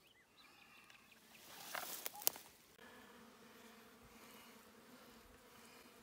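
A rustling scrape ending in a sharp click near the middle, then a steady low insect buzz that starts about three seconds in and keeps on.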